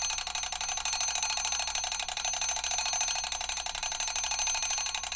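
Mechanical alarm clock ringing, its hammer striking the bell in a rapid, steady rattle with a ringing tone held underneath.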